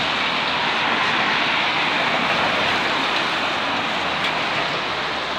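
A steady, even rushing noise outdoors, with no distinct events.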